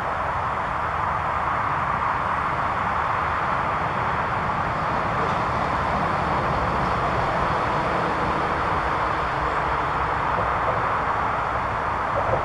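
Steady rushing background noise with a low rumble underneath, unchanging throughout, with no distinct calls or knocks.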